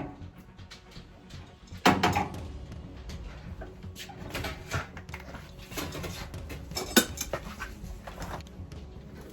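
Hard objects knocking and clattering as tools and parts are handled during installation work. A scattered series of sharp knocks, loudest about two seconds in and again near seven seconds in.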